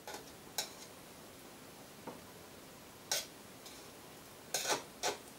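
A metal knife and fork clinking against a stainless steel steamer insert and a china plate: about six separate sharp clicks, with the loudest few close together near the end.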